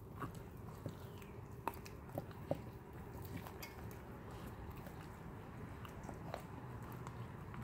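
Puppies gnawing and chewing on fully frozen whole raw tilapia: faint, irregular crunches and clicks of teeth on frozen fish and bone, a few sharper ones in the first three seconds.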